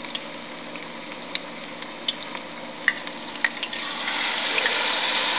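Battered baby shrimp pancake deep-frying in a pan of hot oil: a steady sizzle with scattered crackling pops. The sizzle grows louder about four seconds in, as a metal spatula turns the pancake.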